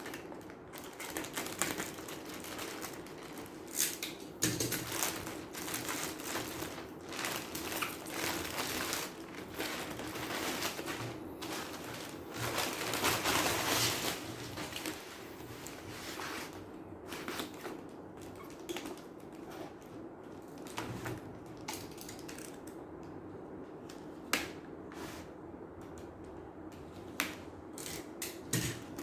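Keyboard packaging being handled during unboxing: cardboard and plastic wrapping rustling and crinkling, with scattered clicks and knocks, loudest about halfway through, over a faint steady hum.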